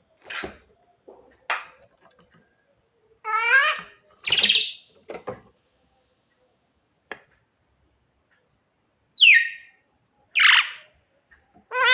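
Javan myna calling in a string of separate short calls, one every second or few. Some are harsh and scratchy, others are whistled with a ringing pitch, and about nine seconds in comes a falling whistle.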